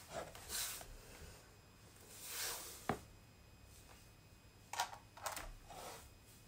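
Faint shuffling and rustling of a person moving on a laminate floor in platform heels, with one sharp knock about three seconds in.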